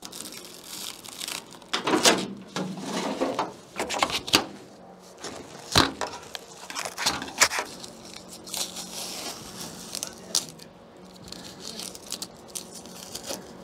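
Old foam filler being dug and scraped out of a rusted window sill cavity with a utility knife and a screwdriver: irregular crunching, tearing and scraping, with a few sharp clicks of the tools against the metal.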